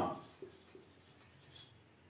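A few faint, short strokes of a marker writing on a whiteboard.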